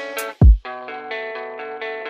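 Background music: effected guitar chords with a deep, falling bass-drum boom about half a second in and a sharp hit just before it.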